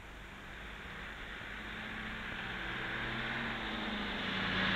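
Ford Major 4000 tractor engine running as the tractor drives closer, growing steadily louder.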